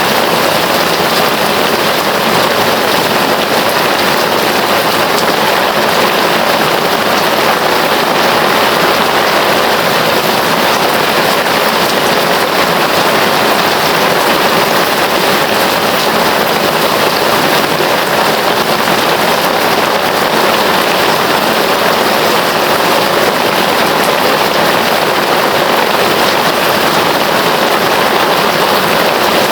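Heavy rain pouring steadily, a loud, even hiss with no let-up.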